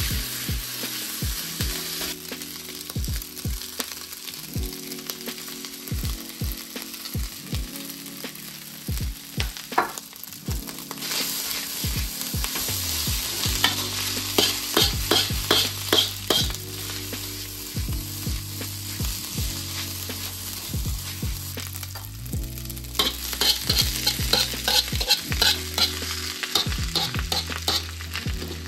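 Egg fried rice sizzling as it is stir-fried in a hot wok, with repeated sharp clacking and scraping strokes against the wok. The strokes come fast and thick about halfway through and again near the end.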